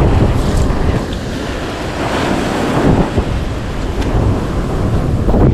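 Wind buffeting the microphone, a heavy, uneven rumble, over the steady wash of breaking ocean surf.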